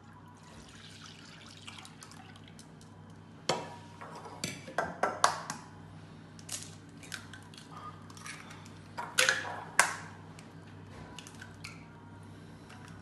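Milk poured softly into a ceramic bowl, then eggs cracked into it one after another: sharp knocks of shell on the bowl's rim with crackling shell and drips of egg into the milk, in two clusters a few seconds apart.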